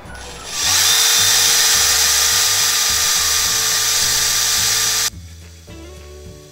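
HiKOKI DV12DD 10.8 V cordless drill driver running an 8 mm twist bit into 6 mm steel plate: a steady whir with the hiss of the bit cutting. The speed holds steady under load. It starts about half a second in and cuts off suddenly about five seconds in, over background music with a steady beat.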